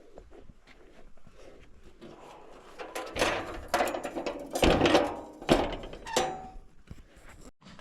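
A run of loud knocks and clattering thuds from objects being handled and set down. It starts about three seconds in and dies away shortly before the end.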